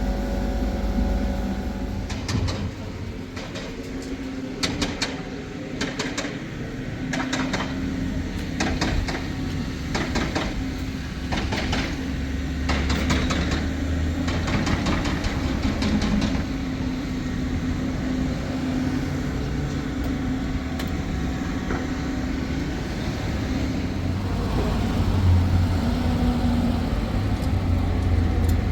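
An engine running steadily with a low hum, with a run of sharp clicks and knocks over roughly the first half.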